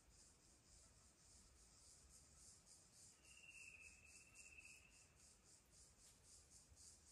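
Faint, high-pitched insect chirping, likely crickets, pulsing steadily at about five pulses a second. A bird gives a single whistled note lasting about a second and a half around the middle.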